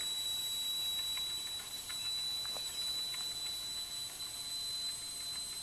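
Wilesco D-18 toy steam engine's boiler at working pressure, giving a steady thin high whistle over a faint hiss of steam as the throttle valve is opened, with a few faint clicks. The whistling is the sign that the boiler is up to pressure and ready to run.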